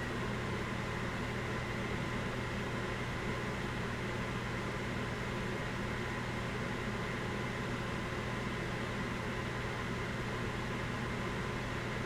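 Microwave oven's cooling fan running steadily, a constant whirring noise with a low hum underneath.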